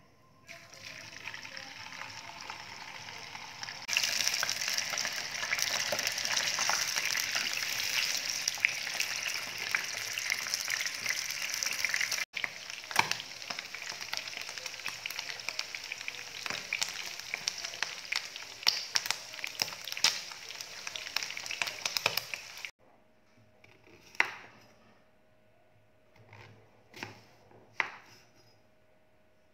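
Slices of pork belly sizzling and crackling in hot oil in a frying pan, pan-frying until crisp; the sizzle grows much louder about four seconds in. It cuts off near the end, and a few knife strokes slice a cucumber on a wooden cutting board.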